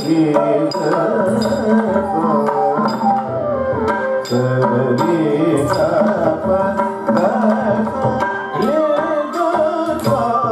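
Carnatic dance music for a Bharatanatyam jatiswaram: a wavering melodic line over a steady drone, with frequent hand-drum strokes keeping the rhythm.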